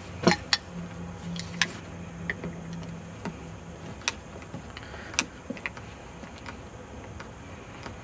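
Irregular sharp clicks and taps from the hard plastic housing of an Apple yoyo power adapter being handled and worked with a knife, the loudest just after the start. A faint low hum runs for about three seconds near the start.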